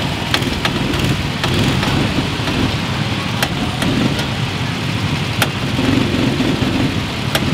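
Several go-kart engines running steadily at idle on the starting grid, heard from the seat of one of the karts, with a few sharp clicks scattered through.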